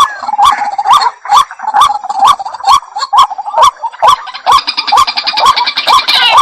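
Waterhen calling: a short, rising, clicking note repeated evenly about twice a second. In the second half, a higher chattering layer of calls joins in.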